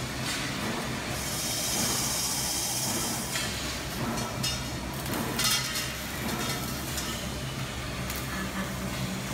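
Machinery of an automated tube-bending and cutting line running, with a steady low motor hum. A hiss starts about a second in and lasts about two seconds, and a short, sharp burst of noise comes about halfway through.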